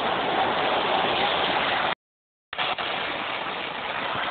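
Steady rushing noise of wind on the microphone during a storm, dropping out to total silence for about half a second midway.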